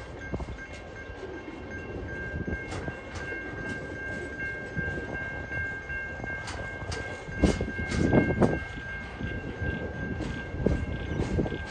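Freight train container wagons rolling past, their wheels clicking and knocking irregularly over the rail joints, with a run of louder clunks about two-thirds of the way in. A steady high tone rings over it throughout.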